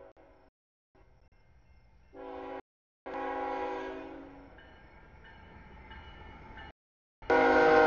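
CSX freight locomotive's air horn sounding its multi-note chord in several blasts for a grade crossing: a short blast about two seconds in, a longer one that fades away, and a loud blast near the end. The sound cuts out abruptly a few times between the blasts.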